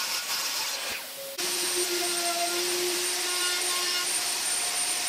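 Table saw cutting a laminate-faced plywood panel; after a brief drop about a second in, a steady power-tool run with a hiss and a faint hum, as the panel is worked on a router table.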